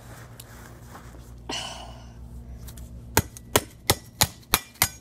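A metal garden trowel striking a smashed iPhone again and again: sharp clacks about three a second, starting a little after three seconds in.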